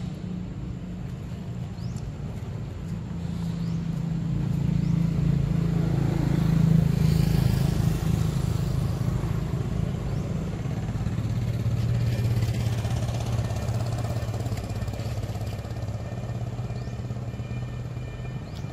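A motor vehicle's engine hum that swells to a peak about a third of the way in, eases off, rises again a little past halfway, then fades, as one or more vehicles pass.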